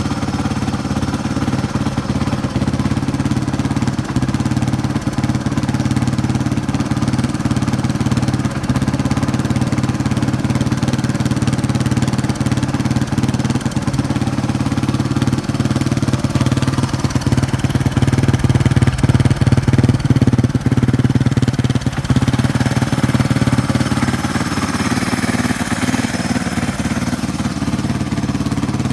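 Yamaha Serow 225's air-cooled single-cylinder four-stroke engine running steadily at idle, with no abnormal noise.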